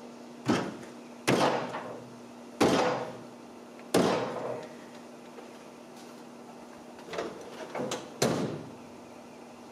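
Sharp metallic bangs with a short ring from the sheet-steel bed of a 1987 Toyota pickup as its bent side is forced back into line: four loud bangs about a second apart, then a lighter cluster of three near the end.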